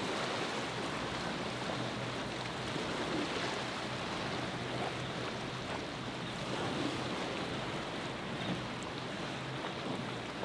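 Rough surf and waves washing, with wind, over the steady low hum of a center-console boat's single outboard motor running through the chop.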